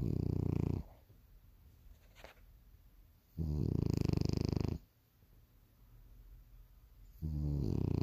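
A sleeping bulldog snoring: three loud snores about three and a half seconds apart, each lasting a second or so.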